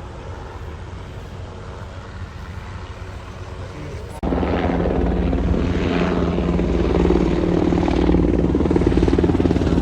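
Helicopter rotor and engine running: a steady, pulsing rotor chop over a low drone. It is fainter at first and jumps sharply louder about four seconds in.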